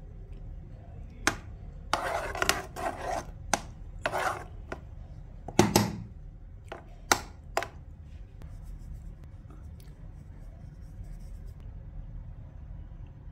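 A metal spoon scraping through cooked rice and knocking against the side of the pot while stirring, with a few sharp taps, the loudest about six and seven seconds in. It goes quiet for the last few seconds.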